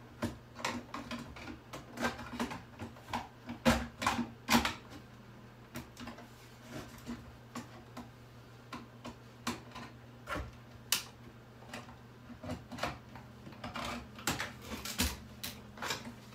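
Irregular clicking and tapping of hand tools and hard plastic parts as a boombox is taken apart, with a few louder knocks about four and eleven seconds in. A steady low hum runs underneath.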